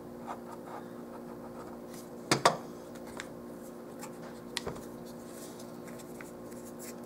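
Quiet handling of paper and a plastic glue bottle on a tabletop: faint rubbing and small ticks, with a sharper double knock about two and a half seconds in as the bottle is set down, over a steady low hum.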